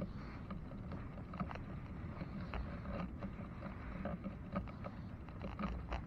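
A bicycle moving slowly over soft beach sand: irregular crunching and rattling several times a second over a low, steady rumble.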